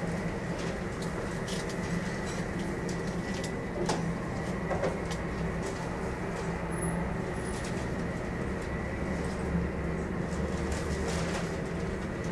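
Boeing 747-400 jet engine starting, heard from across the apron: a steady drone with a thin high whine, its low rumble growing about halfway through as the engine spools up.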